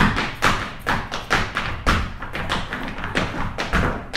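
Feet stamping and tapping on a stage floor in a fast, uneven dance rhythm, several sharp strikes a second.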